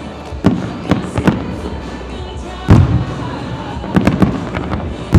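Aerial fireworks shells bursting in a quick, uneven series of booms and cracks, with the loudest boom about two and a half seconds in. Music from the show plays along underneath.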